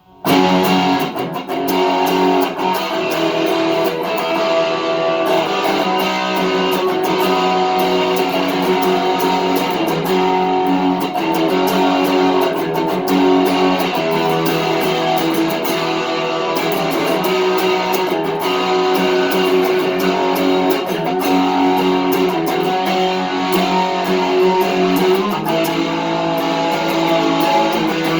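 Electric guitar fitted with coil-splittable GFS Lil' Killers humbucker pickups, chords strummed continuously, coming in sharply right at the start.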